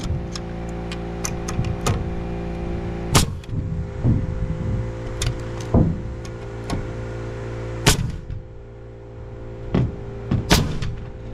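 Pneumatic framing nailer firing nails into lumber: three loud sharp shots about 3, 8 and 10½ seconds in, with lighter knocks of wood between. A steady motor hum runs underneath and drops away for a couple of seconds after the second shot.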